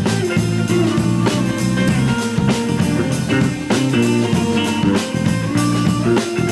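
Live rock trio playing an instrumental passage without vocals: an electric bass line, a drum kit keeping a steady beat, and an electric guitar.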